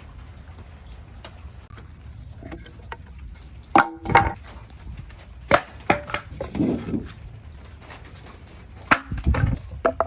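Scattered knocks and thuds of wooden pieces being handled and set down, in small clusters of two or three, with one brief squeak-like ring among them.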